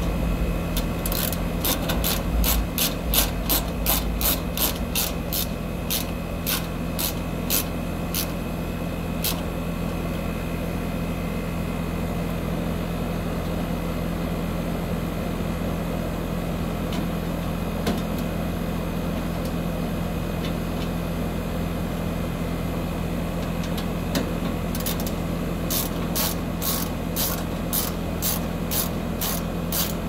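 Heat pump outdoor unit running steadily, its compressor and condenser fan humming, working again on new start and run capacitors. Over the hum, runs of quick clicks, about three a second, in the first nine seconds and again near the end, from a screwdriver driving the side panel's screws.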